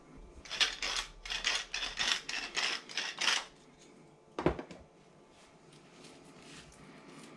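Hand-twisted pepper mill grinding in a quick run of crunchy twists, about three a second for roughly three seconds. A single sharp thump follows about four and a half seconds in.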